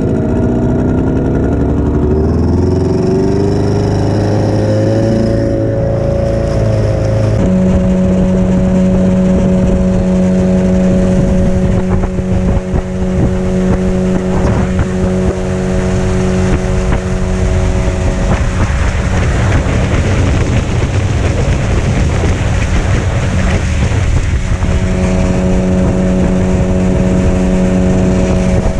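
Yamaha 15 hp outboard motor speeding up, its pitch rising over the first several seconds, then running steadily at speed over a constant rush of wind and water. Its note sinks into the rush for several seconds past the middle and comes back near the end.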